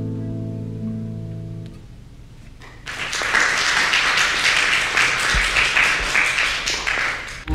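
Classical guitar's final chord ringing and fading, its low notes cutting off just under two seconds in. After a short quiet gap, audience applause starts about three seconds in and continues.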